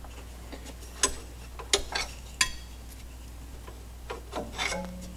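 Loose steel hardware from a leaf-spring mount, the U-bolts and tow perch, clinking and ticking a handful of times as it is worked off by hand, with a small cluster of clinks near the end. A steady low hum runs underneath.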